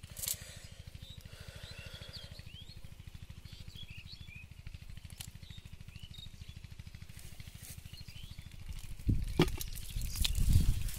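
Faint bird chirps over a steady low hum, then loud, low rustling and thumps from about nine seconds in as the wet cast net is handled.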